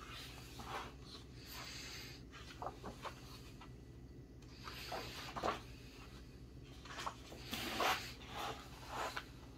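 Paper pages of a paperback activity book being turned by hand: a series of rustles and flaps. The loudest comes near the end, as the book is closed and flipped over.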